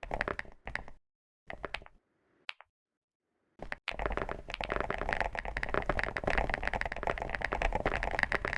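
Typing on a chocolate-style (low-profile, chiclet) keyboard: a few short bursts of keystrokes separated by silent gaps, then rapid, continuous typing from about four seconds in.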